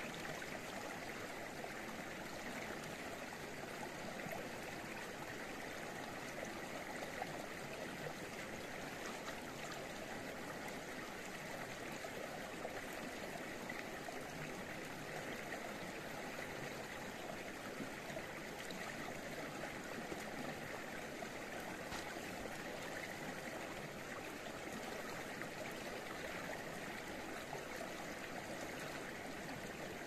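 Stream water running steadily: an even, unbroken rush of flowing water.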